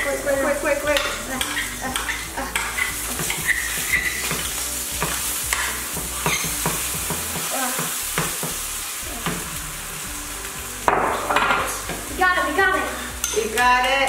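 Vegan egg batter sizzling as it is spooned into a hot oiled frying pan, with a steady high hiss. Over it come repeated scrapes and clicks of a metal spoon against the bowl and of a spatula against the pan.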